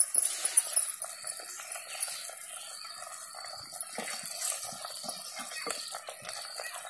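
Brinjal curry simmering in a clay pot, with soft wet sloshing as a ladle stirs it through the pieces.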